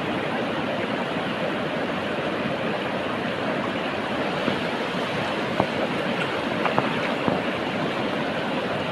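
Steady rush of flowing river water, with a few short sharp clicks about five to seven seconds in.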